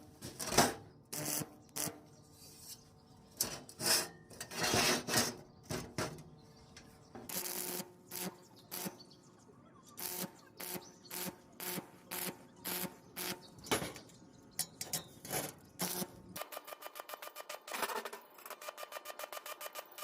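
Irregular series of sharp knocks and clicks. Near the end they turn into a quick, even run of taps, about eight a second.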